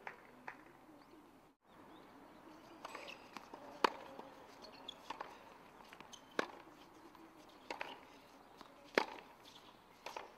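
Tennis rally: rackets strike the ball back and forth, about six sharp pops roughly a second and a quarter apart, every other one louder. Birds call faintly behind.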